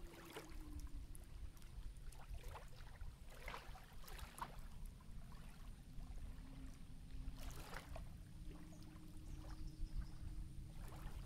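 Small irregular splashes of lake water at the surface, over a low wind rumble on the microphone and a faint steady hum that drifts slightly in pitch.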